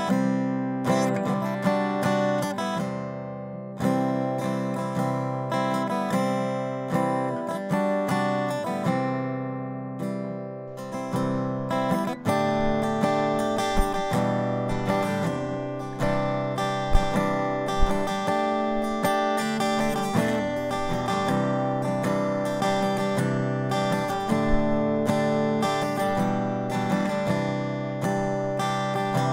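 Solo acoustic guitar instrumental as background music, notes picked one after another and ringing out over strummed chords.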